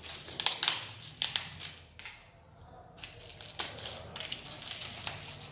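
Plastic film wrapping on a small box crinkling and crackling as it is handled and cut open, in a string of short crackles with a pause of about a second in the middle.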